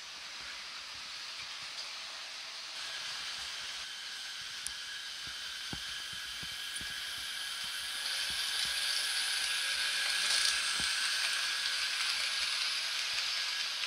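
Model train running on the layout's track: a steady whirring hiss of the locomotive's motor and wheels that grows louder about eight seconds in as a crocodile-type electric locomotive with freight wagons passes close by, with a few light clicks.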